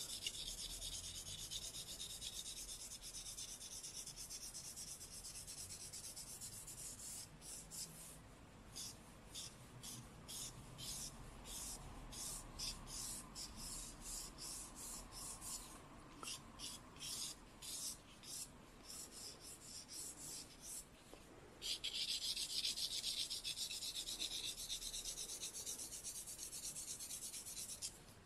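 Charcoal stick scratching across drawing paper while shading. Steady back-and-forth strokes give way about eight seconds in to a run of short separate strokes, and steady strokes return near the end.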